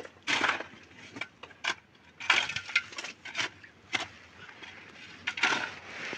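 Metal shovel digging and scraping into dry, stony dirt, in irregular strokes: several longer scrapes between short sharp knocks of the blade on grit and stones.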